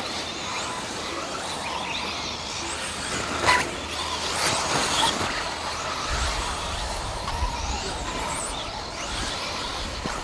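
1/10 scale electric off-road RC cars racing on a dirt track: high-pitched motor whines rising and falling over a steady noise, with a sharp knock about three and a half seconds in.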